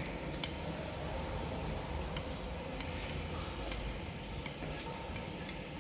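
Steady low electrical hum with faint, scattered clicks and taps.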